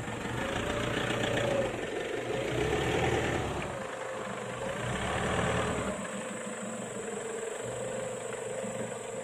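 A 4x4 pickup truck's engine revving up and easing off about three times as it works through deep mud, then settling to a steady idle about six seconds in.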